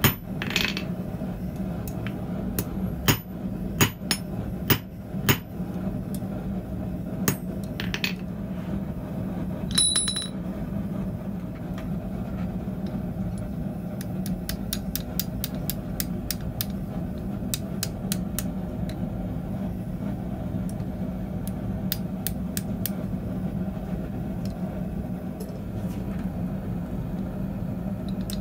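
Hand hammer striking hot steel on an anvil: about a dozen sharp blows over the first eight seconds, one of them ringing near ten seconds in. Then lighter, quick metallic clicks and taps as the hot bar is bent with tongs over a bending tool in the hardy hole, over a steady low hum.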